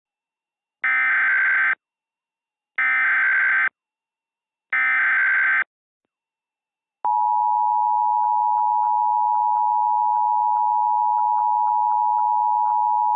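Emergency Alert System tones: three short bursts of SAME header data tones, each about a second long and about two seconds apart. Then, about seven seconds in, the steady two-tone EAS attention signal starts and keeps going, announcing an emergency alert.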